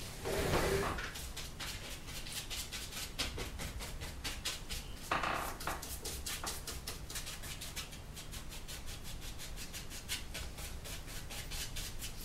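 Paintbrush rubbing oil paint onto a stretched canvas: quick scratchy strokes, several a second, with longer, louder scrubbing strokes about half a second in and about five seconds in.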